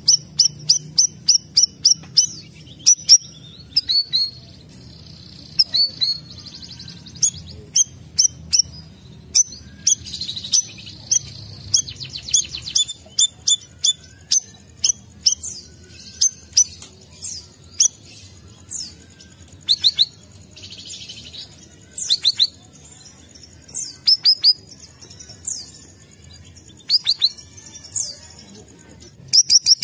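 Small songbirds calling on a birdsong training recording (masteran): sharp, high chirps, a fast even series of about four a second at first, then varied chirps and short trills from more than one bird.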